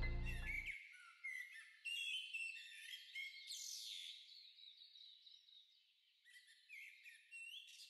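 Background music fading out within the first second, then faint birdsong: many short chirps and gliding whistles, coming and going.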